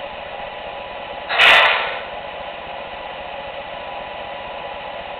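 Steady hiss from the sound system of parked MTH O-gauge model subway trains, with one short, loud burst of hiss about a second and a half in.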